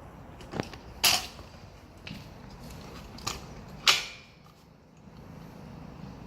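Metal clacks and clicks from a Hudora Big Wheel kick scooter's folding and handlebar-height mechanism being worked by hand: about five sharp knocks, the loudest about a second in and just before four seconds in.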